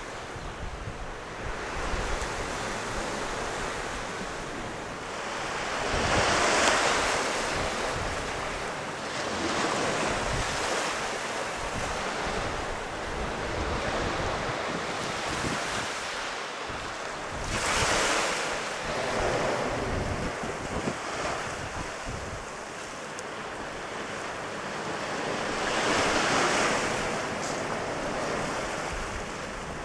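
Sea surf washing onto the shore, swelling louder three times about ten seconds apart, with wind buffeting the microphone.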